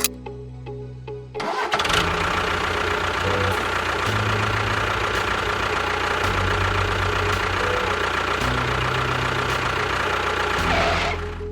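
An engine starts running about a second and a half in and runs steadily, with a low, rhythmic chug whose pace shifts a few times, then drops away near the end.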